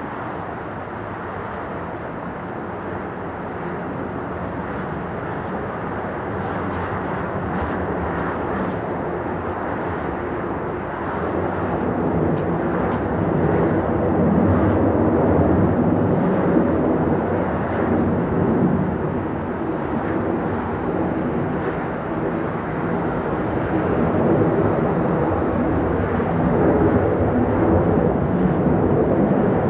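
Airbus A330's twin jet engines climbing out after takeoff: a steady, rumbling jet roar with a faint hum running through it, growing louder over the first half and staying loud as the airliner passes overhead.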